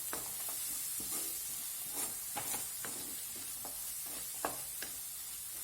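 Onion, tomato and cashew masala sizzling in oil in a pan: a steady hiss, with scattered short scrapes and taps of stirring.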